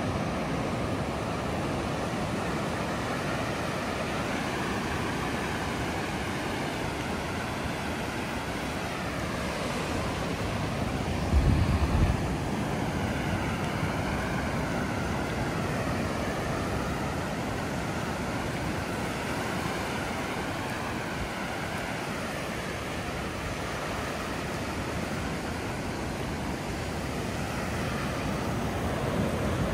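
Ocean surf washing up a sandy beach: a steady wash of small waves and foam, with wind on the microphone and one short, louder low buffet about eleven seconds in.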